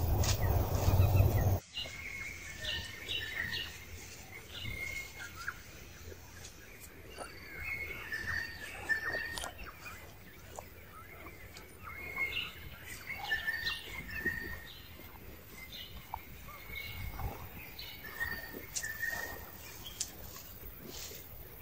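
A loud rumbling noise for the first second and a half that cuts off suddenly; after that, birds chirping in short, repeated high calls, with faint scattered clicks.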